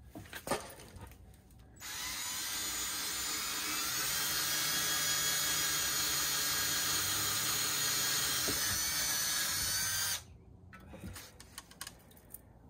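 Cordless drill with a 1/4-inch metal bit boring a bolt hole through the skeg guard into the outboard's skeg. It runs steadily for about eight seconds, starting about two seconds in and stopping suddenly near the ten-second mark, with a few small handling clicks before it.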